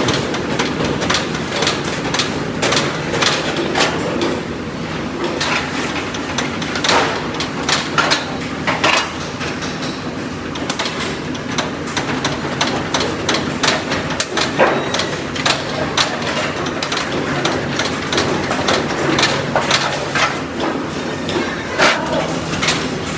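Factory workshop noise: a steady machine hum with frequent irregular knocks and clanks of parts being worked and handled.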